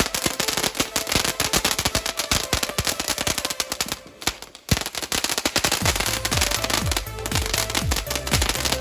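A garden firework crackling and popping rapidly, a dense irregular string of sharp cracks. It dies down briefly about four seconds in and comes back with one loud bang. Background music with a steady thumping beat plays along.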